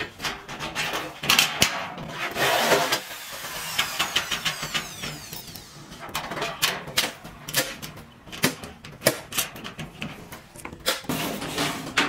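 Metal clicks and knocks as bolts are fitted through a caster bracket on a sheet-iron washing machine body, with a short stretch of power-tool whine as a drill-driven nut driver tightens them.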